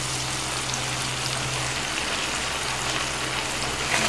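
Chopped onions and capsicum sizzling steadily in hot oil in a non-stick kadai as the sauces are stirred in and sautéed. A faint steady low hum runs underneath.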